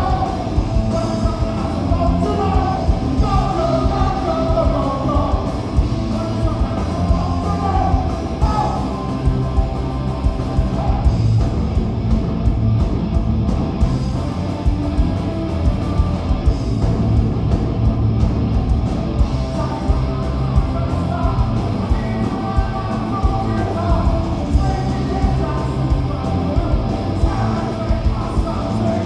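Live punk rock band playing loud and steady: electric guitars and drums, with a singer's vocals over the top, clearest in the first several seconds and again near the end.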